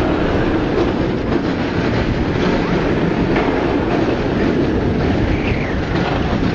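Nemesis Inferno's Bolliger & Mabillard inverted roller coaster train running along its track at speed, heard from on board: a steady, loud rumble and rush with wind on the microphone.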